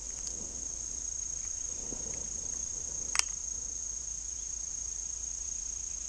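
A steady, high-pitched insect chorus singing without a break, with one sharp click about three seconds in.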